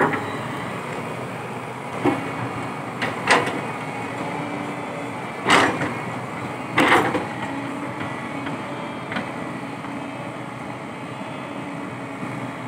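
Komatsu PC120-5 hydraulic excavator running as its bucket digs out a palm stump: a steady engine drone with a hydraulic hum that comes and goes, broken by several sharp knocks from the bucket and its linkage, the loudest about five and a half and seven seconds in.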